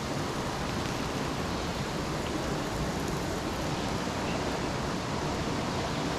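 Steady rushing of river water, an even hiss without breaks.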